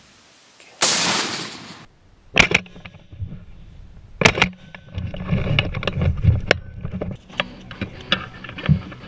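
A shotgun shot about a second in, its blast ringing on for about a second before cutting off, followed by several sharp knocks and thumps.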